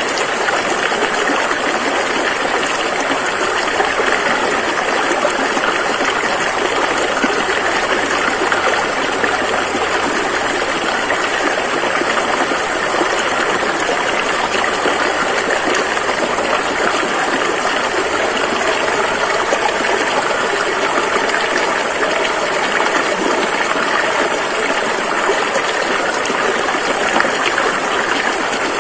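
Rushing river water flowing over rapids, a steady full rush without breaks.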